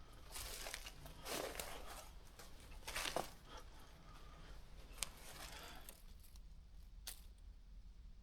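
Faint rustling and crinkling in a handful of soft scuffs, with a sharp tick about five seconds in and another about seven seconds in.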